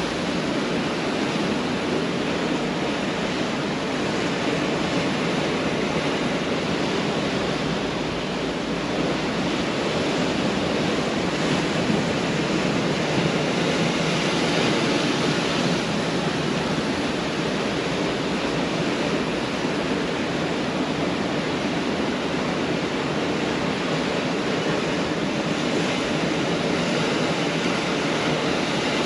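Pacific Ocean surf breaking and washing on the beach: a steady, dense rush of waves with gentle swells in loudness.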